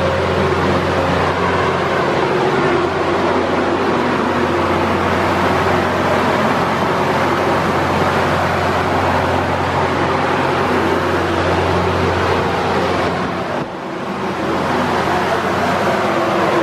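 Steady, loud engine drone with a low hum, echoing through the ferry's enclosed steel car deck; it dips briefly about fourteen seconds in.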